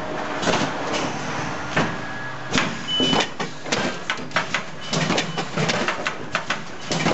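Fotopoulos pot-tray transplanter running: a steady machine hum under a string of sharp clacks and knocks from its moving parts. The clacks come more often in the second half.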